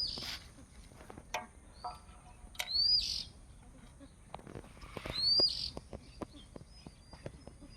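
A bird calling three times, about every two and a half seconds: each call is a short rising-and-falling chirp with a harsh rasp right after it. Scattered sharp clicks sound between the calls.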